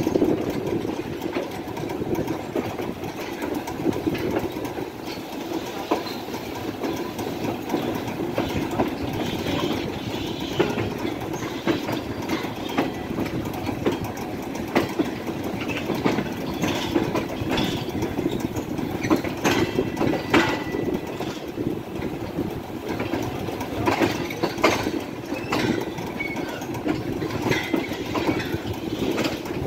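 Passenger train coaches rolling through a station yard, heard from an open coach window: a steady rumble of steel wheels on the rails with irregular clacks as the wheels pass over rail joints and points, and a few brief high squeals in the second half.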